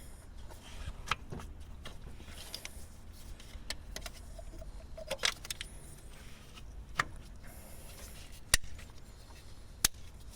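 Scattered sharp metallic clinks and taps of hand work on an engine, about a dozen irregularly spaced, the loudest two near the end, over a low steady hum.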